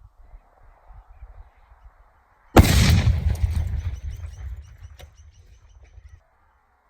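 Improvised explosive charge packed inside a microwave detonating about two and a half seconds in: one loud blast that dies away over a few seconds, with a few sharp cracks as it fades. Before it, only faint outdoor background.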